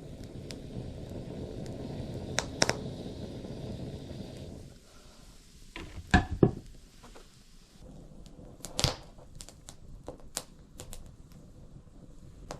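Scattered sharp knocks and clicks of objects being handled, the loudest a close pair about 2.5 s in and another about 6 s in. Under them a steady rushing noise runs until about 4.5 s in and then stops.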